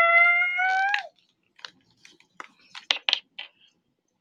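A high voice holding one long note that rises slightly and cuts off about a second in, followed by a handful of faint scattered clicks.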